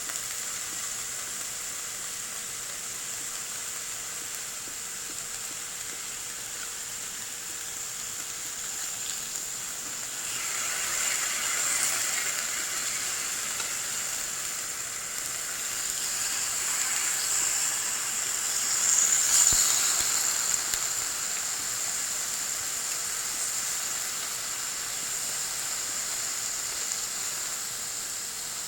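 Wagyu beef searing on a hot iron plate, sizzling with a steady hiss. The sizzle swells louder about ten seconds in and again, most strongly, around two-thirds of the way through.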